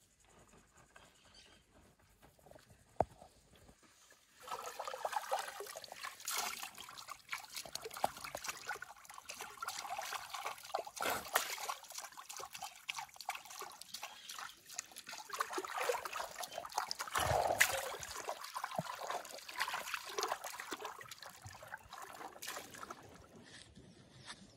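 Water splashing and trickling in a water trough as an elephant calf's trunk stirs and dabbles in it. It comes as a continuous run of small splashes, starting about four seconds in.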